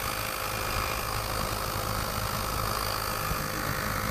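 Weiti cordless portable tire inflator's small electric compressor running steadily while it pumps up a motorcycle rear tire.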